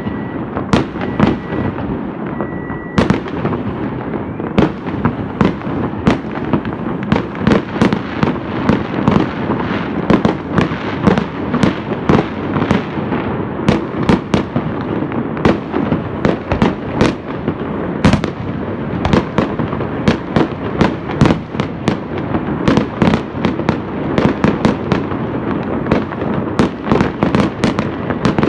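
Massed fireworks going off all around: a continuous din of crackling and popping with sharp bangs several times a second. A high beep sounds a few times in the first three seconds.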